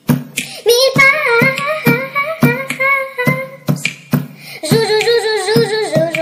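Music: a high sung melody over a quick, steady beat.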